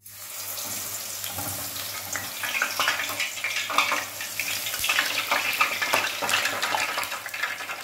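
Eggplant slices deep-frying in hot oil in a stainless steel pot: a loud, crackling sizzle that starts abruptly as the slices go in and keeps on steadily.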